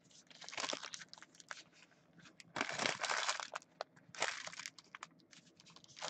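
Trading card packs being opened by hand: plastic wrappers crinkling and cards rustling in three short bursts, with small clicks between.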